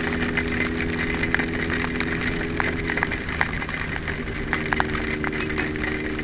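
Honda CBX 750's air-cooled inline-four engine running steadily at low road speed, easing off about three seconds in and picking back up a second later. A constant hiss of rain and wind runs under it, with scattered sharp ticks.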